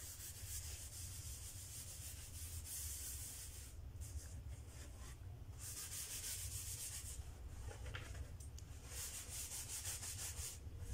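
A soft cloth rubbed back and forth over a freshly sanded wooden panel, wiping off the sanding dust, in strokes of scratchy hiss with brief pauses. A low steady hum lies underneath.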